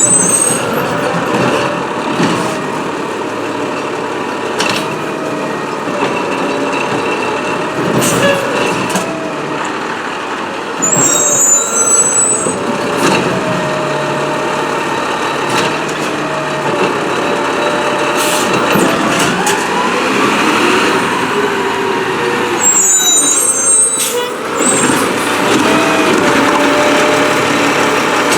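Peterbilt 320 refuse truck with a New Way Rotopac body working: the engine and hydraulics run steadily with a held tone, broken by scattered clanks and by brief high-pitched squeals with air hiss three times, near the start, about a third of the way in and near the end.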